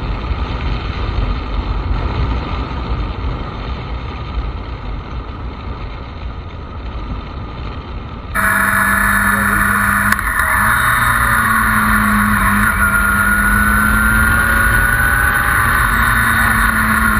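Motorcycle riding at road speed: engine and wind noise. About halfway through, the sound changes abruptly to a different camera, with a steadier engine tone whose pitch drifts gently up and down.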